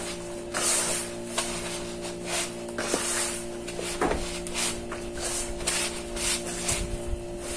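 Crumbly glutinous rice flour dough being rubbed and kneaded by hand in a plastic bowl: a run of rustling, scrubbing strokes, about two to three a second.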